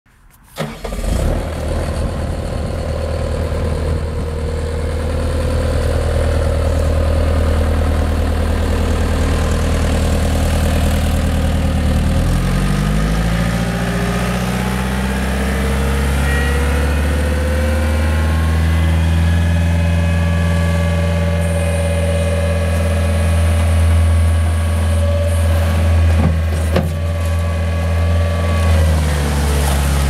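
Bobcat T300 compact track loader's diesel engine running at low idle, then throttled up about twelve seconds in and held steadily at higher revs. A single sharp click sounds late on.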